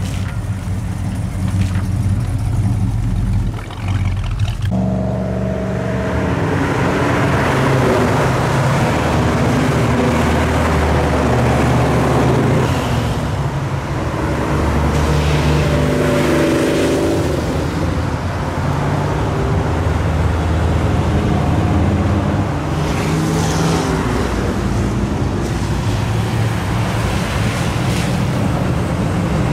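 A parked classic car's engine idles steadily. About five seconds in, the sound cuts abruptly to a steady stream of cars and muscle cars driving past, their engines rising and falling in pitch as each one goes by, over tyre noise on a wet road.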